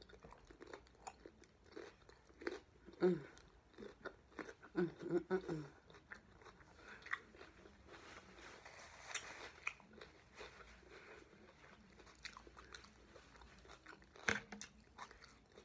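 Close-up chewing of raw cucumber: crisp, wet crunching and mouth sounds in a rapid, irregular run, with a few short hums in the first half.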